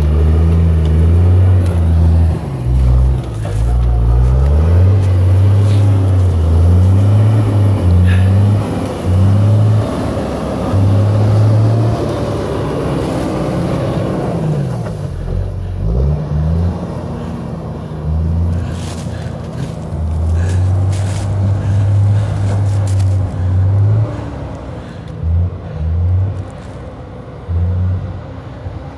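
Diesel engine of a John Deere grapple skidder running and revving as it drives, its pitch rising and falling, with scattered clicks in the second half. It grows fainter near the end as the machine moves away.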